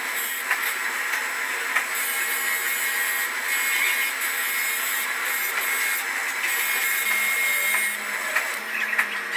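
Bench grinder motor spinning a wire brush wheel, with rusty steel hook parts held against it to strip rust: a steady high hiss with short scratchy spikes each time the metal bites into the bristles.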